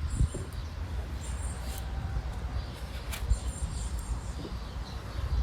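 Small birds chirping a few times in short, high-pitched bursts, over a steady low rumble.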